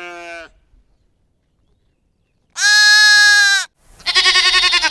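Sheep bleating: a softer bleat trailing off just after the start, then after a pause a loud, steady bleat lasting about a second, followed straight after by a quavering bleat near the end.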